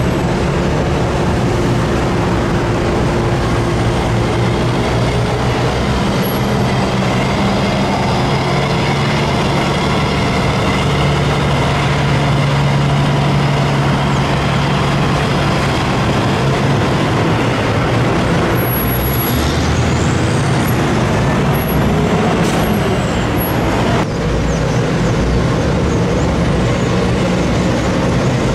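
Diesel semi-truck hauling a loaded sugar cane trailer, its engine running as it drives slowly past, with the engine note loudest about halfway through, over a steady background din.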